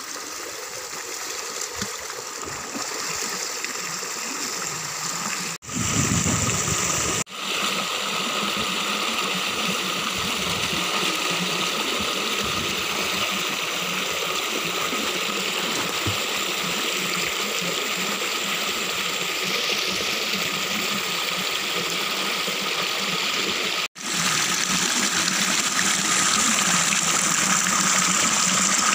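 Shallow stream rushing steadily over rocks, with water splashing as someone wades and swims in it. The sound breaks off for an instant three times.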